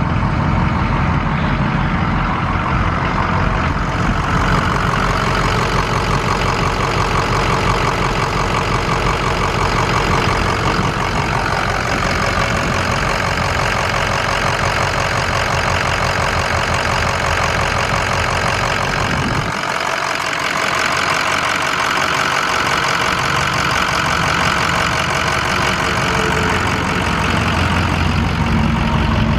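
Ford 6.0L V8 turbo diesel idling steadily. Its deep low rumble drops away for a few seconds about twenty seconds in.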